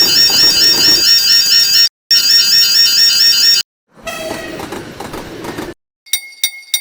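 Cartoon railroad crossing alarm: a loud, high, rapidly warbling electronic tone over a rushing train-like noise. It cuts off after about two seconds, sounds again for about a second and a half, then gives way to a quieter rushing sound. Near the end comes a quick run of bright clinks, about four a second.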